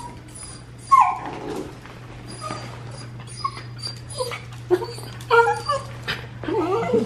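Dachshund yipping and whining while mouthing a person's hand in play, with a sharp falling yelp about a second in and a run of short whines and grumbles near the end.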